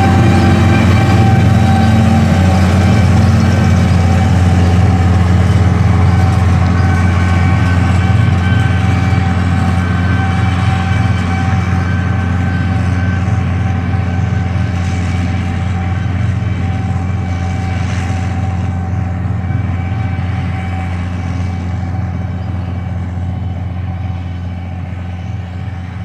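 Case IH Steiger 9330 tractor's 8.3-liter turbocharged six-cylinder diesel running steadily under load, pulling a hay merger, with a steady whine on top of the engine hum. It grows gradually fainter as the tractor moves away.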